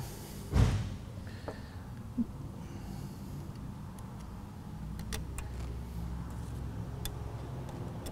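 Hand work on a Duramax fuel filter head assembly: a dull thump about half a second in, then a few faint clicks of small screws and a hand key against the metal housing, over a steady low hum.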